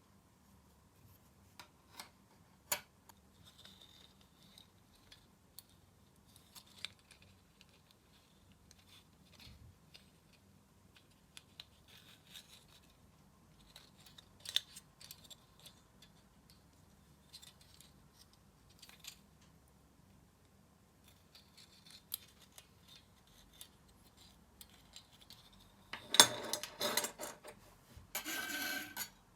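Hand work on a small metal pocket balance: light clicks and taps with faint scratching and rubbing, then a louder few seconds of scraping near the end.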